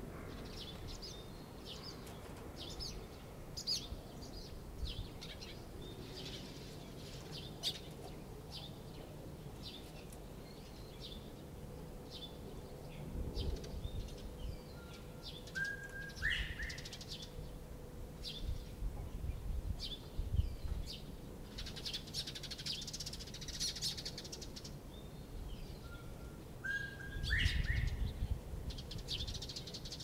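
Northern bobwhite giving its whistled call twice, each a short lower note stepping up into a rising whistle, once about halfway through and once near the end. Many short high chirps run throughout.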